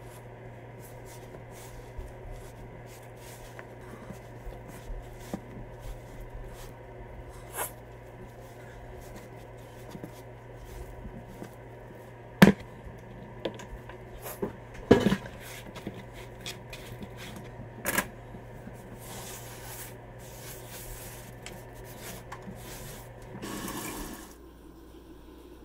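Pizza dough being kneaded by hand on a countertop: soft squishing and light tapping, with three sharp knocks near the middle, the loudest sounds. A steady low hum runs underneath and stops abruptly near the end.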